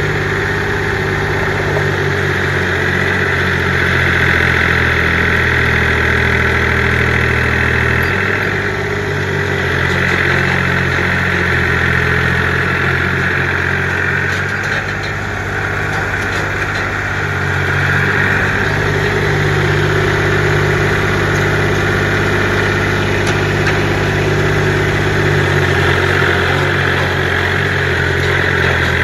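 Kubota compact tractor's diesel engine running steadily at low speed, its pitch shifting slightly about eight seconds in and again mid-way as the loader works, with a steady higher whine over it.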